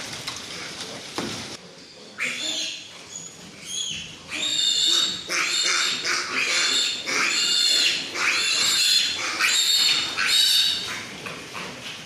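Weaned piglets squealing: a run of repeated high-pitched squeals, starting about two seconds in, loudest in the middle and fading near the end.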